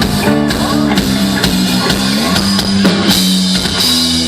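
A live rock band playing through a concert PA: drum kit beating steadily under held guitar and keyboard notes, with one note sustained near the end.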